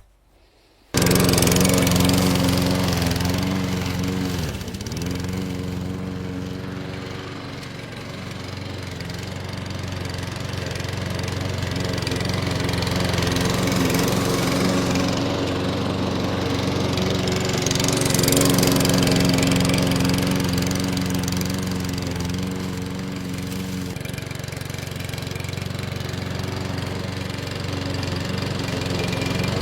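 Petrol engine of a Webb R460SP self-propelled rotary lawnmower running steadily, cutting in abruptly about a second in. Its note dips briefly about four seconds in, and the loudness swells and fades slowly as it runs.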